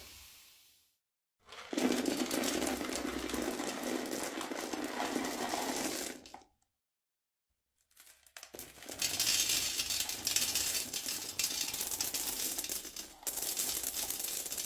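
Toilet flushing: water rushing and gurgling through the bowl in two separate stretches of about five and six seconds, each starting and stopping abruptly.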